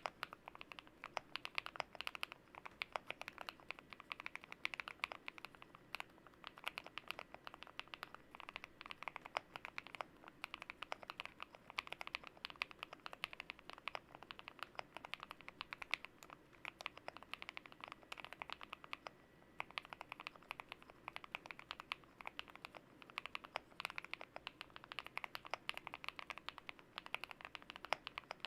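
Typing on a GMK67 mechanical keyboard with lubed KTT Kang White V3 linear switches, Cherry-profile keycaps and foam and tape mods: a continuous stream of quick keystrokes, with a short pause about twenty seconds in.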